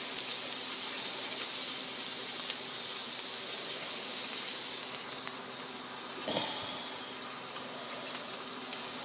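Food frying in oil in a hot pan: a steady high-pitched sizzle that eases slightly about halfway through.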